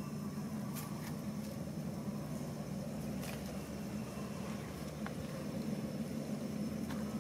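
A steady low mechanical hum in the background, with a few faint, short clicks scattered through it.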